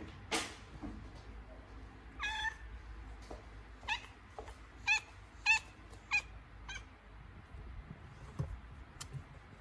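Domestic cat in labour giving six short, high meows over about five seconds, the first a little longer than the rest. A brief rustle comes just before them, near the start.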